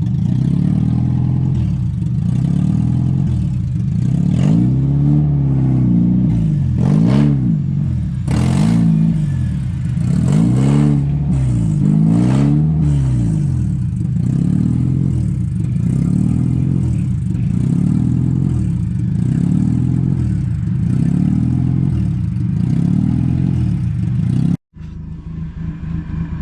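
Car engine revved hard up and down about once a second, several times in a row, then held at steady high revs that waver in even pulses, typical of a stuck vehicle trying to drive free of mud. The sound cuts out briefly near the end.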